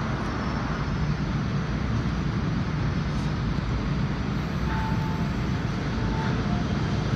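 Steady low rumble of an underground metro platform with a Rotem K-Train standing at it just before it pulls out, with a couple of brief faint tones about five and six seconds in.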